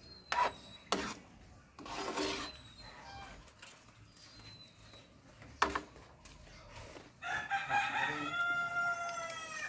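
A rooster crowing once near the end, a long drawn-out call that dips slightly in pitch as it finishes. Before it, a few sharp clinks of a spoon against a metal cooking pan.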